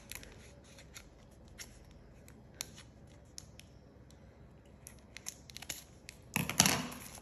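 Kitchen scissors snipping through folded white paper, a scatter of short, quiet blade clicks and cuts. A louder burst of paper noise comes near the end.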